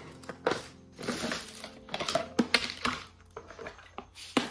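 Hard plastic lunch box being taken apart by hand: the carrying handle comes off and the containers and snap-on lids are pulled apart and set down. This makes a series of sharp plastic clicks and knocks, with some rustling in between.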